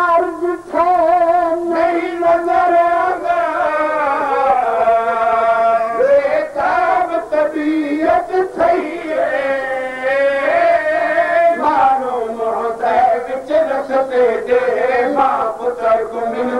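A solo male voice singing a melodic lament, holding long notes with a wide, wavering vibrato and sliding between pitches, with short pauses for breath.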